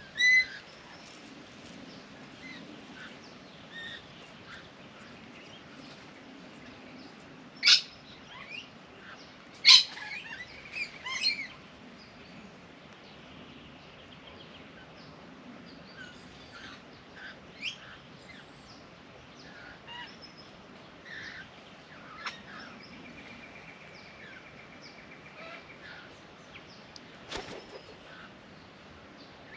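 Several wild birds calling and chirping, with two loud, sharp calls about eight and ten seconds in and a rapid trill later on. A brief knock comes near the end.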